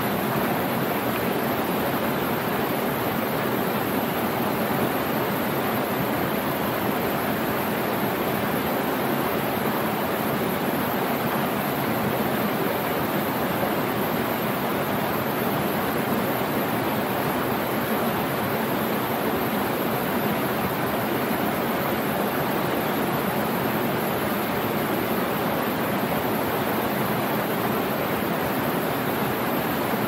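Small waterfall cascading over boulders into a rocky pool: a steady, even rush of water.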